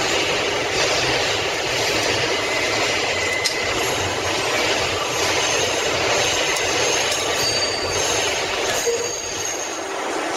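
New York City subway 6 train car running on a tight curve: a steady rumble of wheels on rail, with thin high wheel squeals in the second half.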